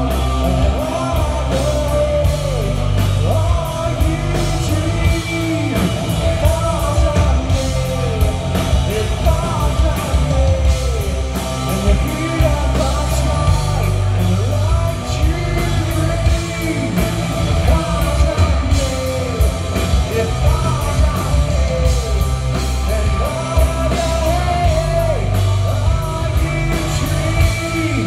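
Rock band playing live: electric guitars, bass and drums under a male lead vocal, loud and steady, heard from the audience.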